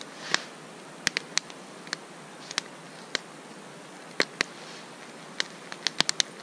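Wood campfire crackling, with sharp pops at irregular intervals.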